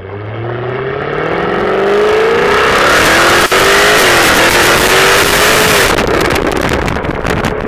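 Supercharged V8 of a 2015 Jaguar F-Type R Coupe heard at its exhaust tips under hard acceleration: the note climbs, a sharp crack on an upshift about three and a half seconds in, and it climbs again. Near the end, on lift-off, the exhaust gives a quick run of snaps and pops.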